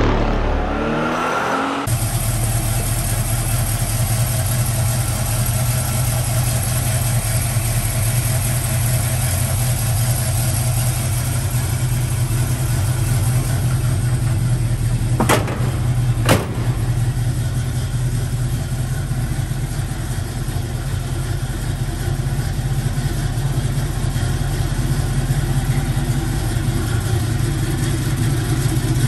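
Chevrolet 402 big-block V8 of a 1954 Chevrolet pickup idling steadily, with two sharp clicks about halfway through. The first two seconds hold the end of an intro sound effect before the engine comes in.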